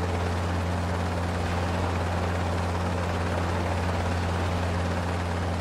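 US Coast Guard MH-60 Jayhawk helicopter hovering close by: loud, steady rotor and turbine noise, a strong low drone under a wide rush of sound.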